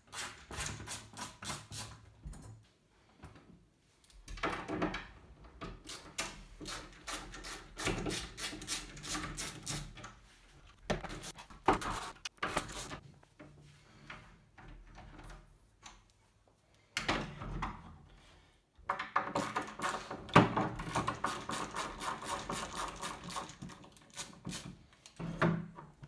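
Screwdriver work on door-handle screws, with metal lever-handle parts clicking, rattling and scraping against a wooden door, in bursts with short pauses between.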